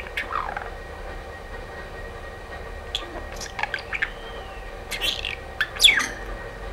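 Pet budgerigar's soft chirps and chattering warble, with a quiet stretch about a second in, then a flurry of short chirps and a loud squeak that falls in pitch near the end.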